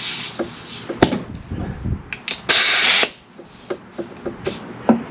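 Compressed air hissing in one short, loud burst about two and a half seconds in, amid scattered clicks and knocks while the smoke machine's air supply is being turned on to pressurise the engine's intake for a vacuum-leak test.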